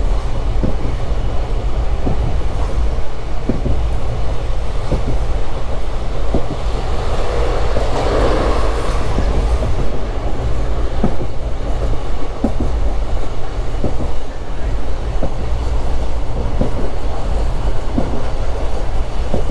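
Old Indian Railways sleeper-class coach running along the track: a steady low rumble of wheels on rails with scattered clicks from the wheels passing rail joints. A louder rush of noise swells around eight seconds in.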